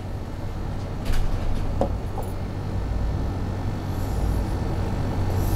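Steady low hum and background rumble, with a few faint taps of a stylus writing on a touchscreen teaching board.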